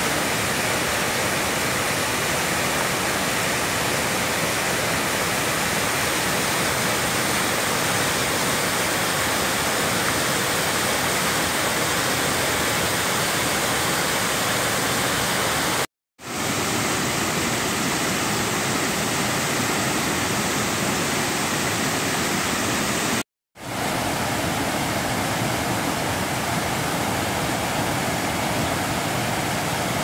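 Steady rush of the Lolaia waterfall on the Sibișel river, two streams of water pouring over rock into a pool. The sound drops out to silence briefly twice, about halfway through and again about three quarters of the way through.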